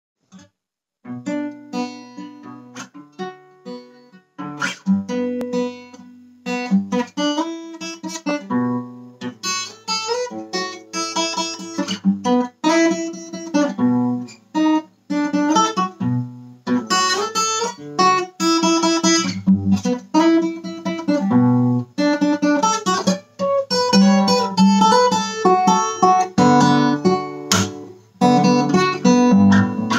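Acoustic guitar played, a tune of plucked notes and chords that ring on, starting about a second in.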